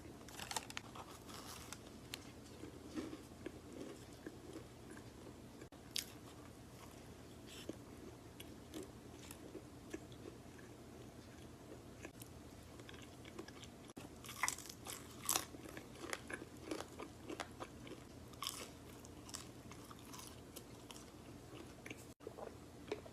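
A person chewing and biting food close to the microphone: faint, scattered crunchy bites and mouth sounds, with a busier run of crunching about two-thirds of the way through.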